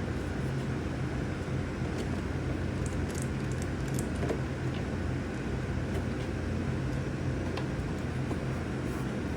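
Steady low hum with a few faint light clicks of small nuts and hardware being fitted by hand.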